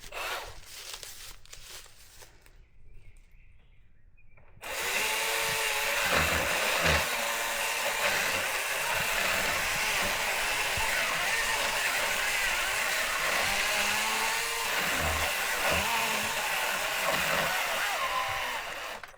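Milwaukee M18 cordless pole saw starting about five seconds in and cutting into a maple's back cut, its pitch dipping twice as it bogs down in the wood, then stopping abruptly near the end as the bar becomes pinched in the cut.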